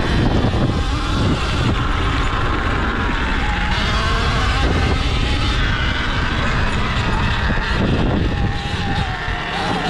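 Sur-Ron Ultra Bee electric dirt bike ridden over a dirt track: a thin whine from the electric drivetrain that rises and falls with speed, over a heavy low rumble of wind on the microphone.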